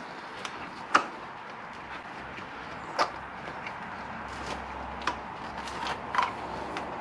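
Several sharp knocks and clicks, the loudest about a second in and another near three seconds, from hands working the stock rubber clutch hose of a Suzuki SV1000 out through the motorcycle's frame and brackets.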